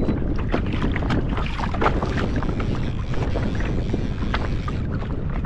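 Wind rumbling steadily on the microphone, with many short slaps and splashes of choppy water against a kayak's hull.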